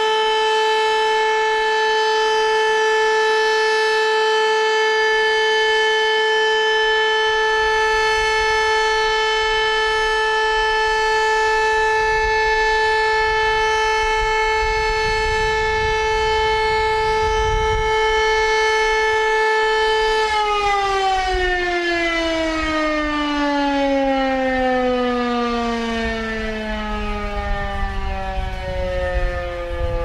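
Greek civil defense siren holding one steady wail, then, about two-thirds of the way through, its pitch slides steadily down as it winds down.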